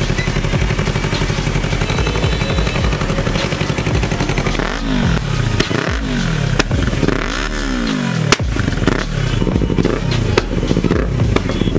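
Yamaha R3's 321 cc parallel-twin engine running through an aftermarket Akrapovic full-system exhaust: a steady idle, then from about four and a half seconds in, quick throttle blips roughly once a second, with a sharp crack among them. The exhaust is heard first with its dB-killer baffle fitted and then without it.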